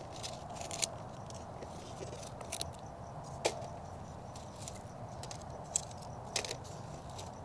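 Scattered small crackles and rustles of dry dead leaves being pulled off a succulent and handled in plastic-gloved hands, a few sharper clicks among them.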